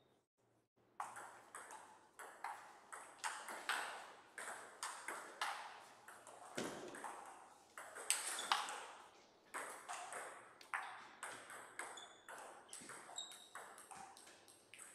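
Table tennis rally: a plastic ball clicking sharply off rubber-faced bats and the Donic table in quick alternation, about two hits a second, from about a second in until near the end. A dull thump comes partway through.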